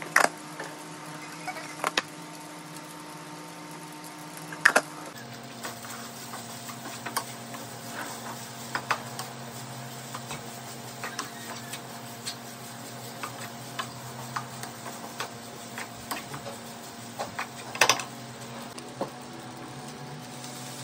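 Utensil clicking and scraping against a frying pan while stir-frying rice: irregular light clicks with a few louder knocks, over a steady low hum.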